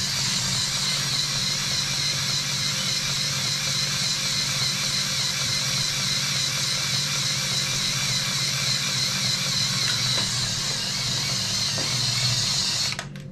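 A steady machine-like hum and hiss with a faint wavering high whine, cutting off suddenly near the end.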